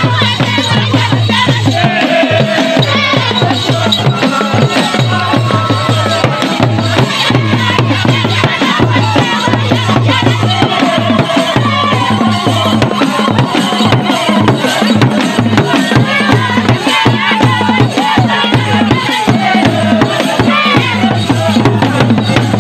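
Acholi Bwola dance drumming: small drums beaten with sticks in a steady, fast rhythm throughout, with voices of the dancers and crowd over it.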